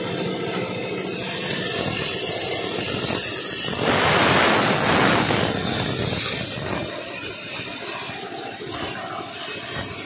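Plasma cutter torch hissing as it cuts carbon steel plate, with a steady rough noise that swells louder for about a second and a half around four seconds in.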